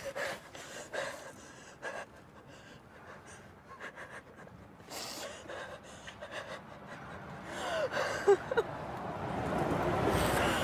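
Two people gasping and panting, catching their breath after a struggle, in short irregular breaths. A louder rushing noise builds near the end.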